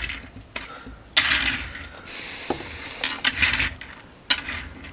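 Small diecast toy cars handled on a wooden tabletop: a few light clicks and two short scraping rattles, about a second in and again past the three-second mark.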